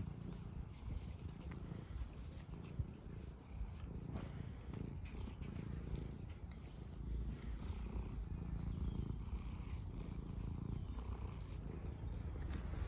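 Domestic cat purring steadily, right up close, while it is scratched on the head.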